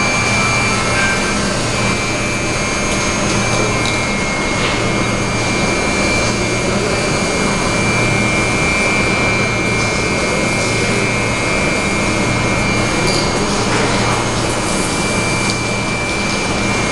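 Stopped electric metro train standing with its equipment running: a steady loud rushing noise with a constant high whine and a low hum underneath.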